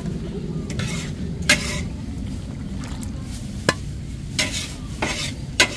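Metal ladle stirring a pot of fish-ball curry at a street-food stall, knocking against the pot with about six sharp clanks over a steady low bubbling and sizzling.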